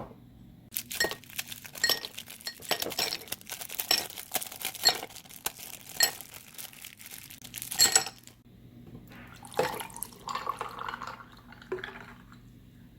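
Utensils and tableware clinking against glass dishes in a run of sharp taps and clicks, followed by softer scraping and handling noise.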